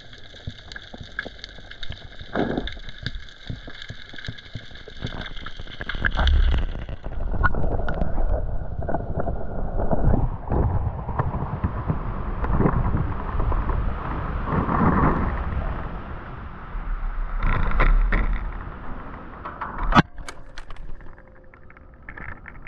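Muffled underwater sound with a steady high-pitched whine for the first six seconds or so. Then water sloshes and splashes around the microphone at the waterline, with gusts of wind rumble, and there is a sharp click near the end.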